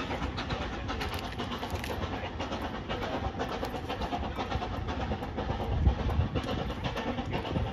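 Narrow-gauge steam train pulling away, hauled by the Hunslet quarry saddle tank Dolbadarn: a steady running noise of locomotive and carriages with many small clicks, and a louder low rumble about six seconds in.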